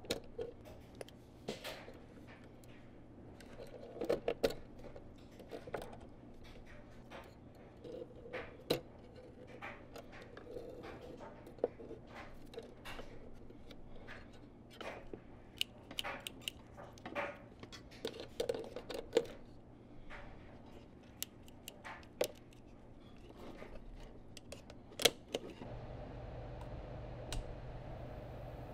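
Small metallic clicks and taps of wire and small steel wrench parts being handled and hung from steel rods over an electrolysis tub, irregular and scattered with a few sharper clicks. Near the end the clicking gives way to a steady low hum.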